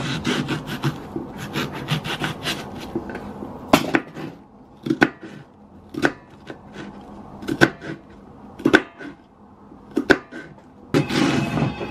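Kitchen knife chopping an onion on a wooden chopping board. A quick run of cuts comes first, then single sharp knocks about once a second, and a denser burst near the end.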